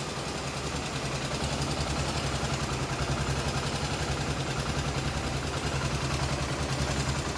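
Honda CBX 250 Twister's single-cylinder four-stroke engine idling steadily, heard close up. It makes only its normal running sound, without the loud cam-chain noise, because its cam chain tensioner has been replaced.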